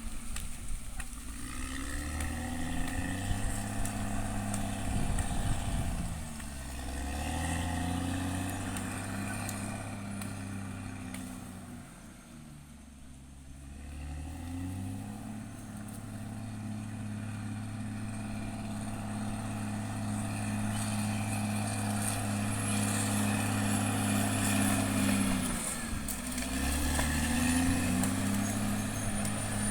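Caterpillar D6R XL bulldozer's diesel engine running while the machine works. The engine note sags and recovers several times, with a quieter, lower spell partway through.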